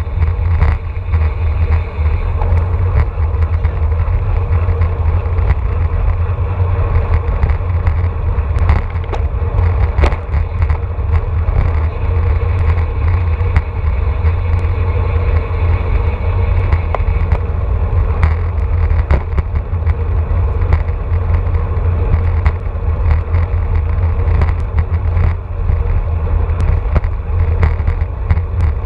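Wind rushing over an action camera's microphone on a road bike at about 25 to 30 mph: a loud, steady low rumble, with scattered sharp clicks.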